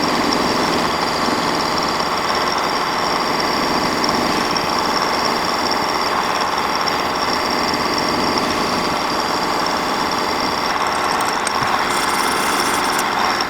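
Metal lathe running as the cutting tool takes a turning pass along the workpiece, with the cross slide fed in about 15 thousandths. It is a steady machining noise with a constant high whine over it.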